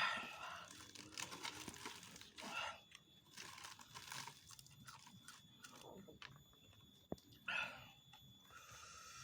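Close-up crunching and chewing of raw vegetables: a mouth biting into and chewing crisp raw produce in irregular bites, loudest at the start and again about seven and a half seconds in.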